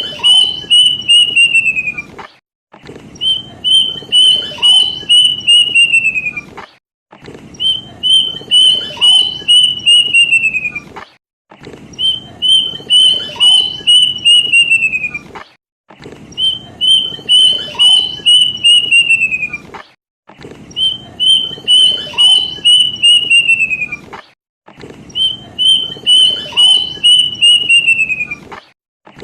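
Plaintive cuckoo (kedasih) song: a run of about eight to ten quick whistled notes, level at first and then falling in pitch, repeated in identical phrases about every four and a half seconds. It is a looped lure recording played to set birds singing.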